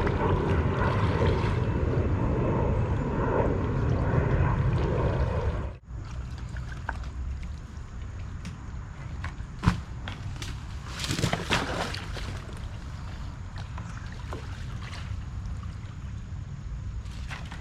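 Shallow river water running and sloshing. The sound drops off suddenly about six seconds in, then a few sharp knocks and clatters come through as trash is worked out of the water.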